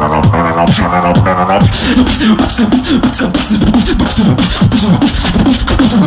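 Live solo beatboxing: for about the first second and a half a few sung-like pitched vocal notes over a bass line, then a fast stream of mouth-made percussive clicks over repeated short falling bass notes.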